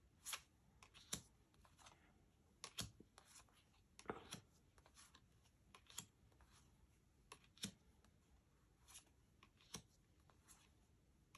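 Tarot cards being handled and set down one after another: faint, irregular clicks and taps, roughly one or two a second, against near silence.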